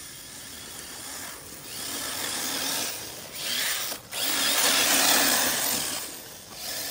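Arrma Typhon 6S 1/8-scale RC buggy's brushless electric motor whining as the buggy drives over thick grass. It rises and falls in several surges of throttle and is loudest around five seconds in.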